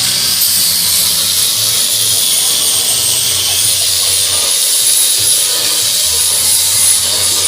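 A power woodworking tool running steadily, a loud hiss with a high whine that wavers slightly in pitch.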